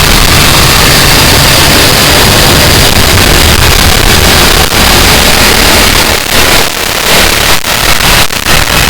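Harsh noise music: a dense, distorted wall of static-like noise at full loudness, with several brief stuttering cut-outs in its last few seconds.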